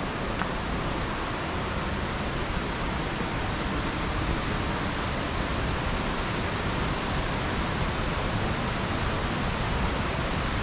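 Steady rush of white water from the Bald River's falls and cascades, an even, unbroken wash of water noise.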